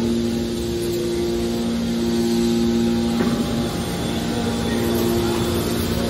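Steady hum of a hydraulic scrap-metal baler's power unit, its electric motor and hydraulic pump running.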